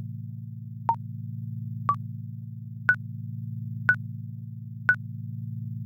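Countdown timer ticking: short electronic beeps once a second, the last three higher in pitch, over a steady low synthetic drone.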